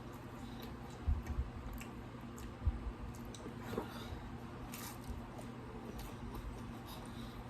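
A person chewing pizza close to the microphone: wet mouth sounds with small clicks, and a few low knocks, the loudest nearly three seconds in.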